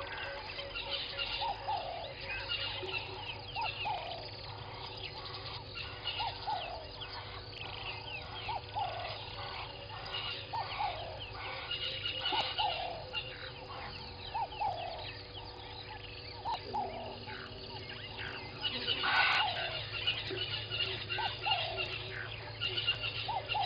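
Birds calling in a dawn chorus: a short falling note repeated about once a second, over many higher chirps and trills. A faint steady hum runs underneath, and one louder burst of calls comes near the end.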